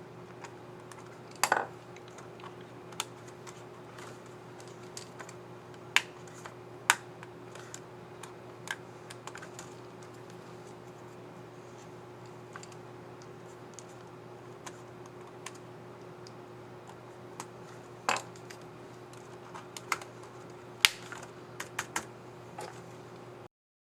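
Irregular plastic clicks and snaps of a Dell Precision 5530 laptop keycap and its scissor mechanism being handled, pressed and snapped into place on the keyboard. A few clicks are much louder than the rest, over a steady low hum. The sound cuts off just before the end.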